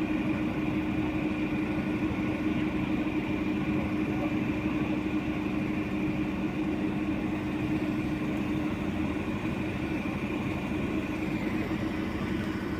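Motor vehicle engine idling steadily: an even hum with a constant low drone and a fainter high whine.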